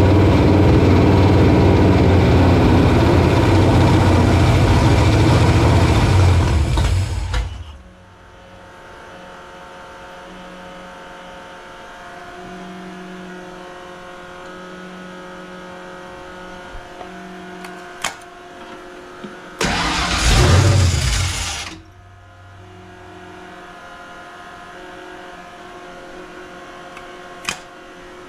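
Fox-body Mustang's carbureted engine fires and runs loudly for about seven seconds, then dies. About twenty seconds in it catches again, runs for about two seconds and dies once more. This is the carburetor fault that lets it fire but won't let it keep idling, which the owner suspects is a huge vacuum leak or a bad carb.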